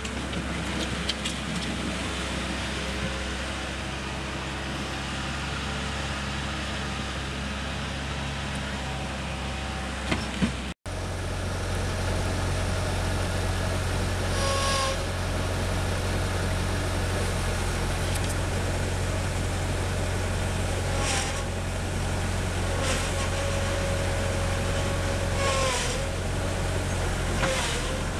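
Bobcat skid-steer loader's engine running steadily as the machine drives along and works its bucket, with a few short squeaks over the engine. The sound cuts out briefly about eleven seconds in.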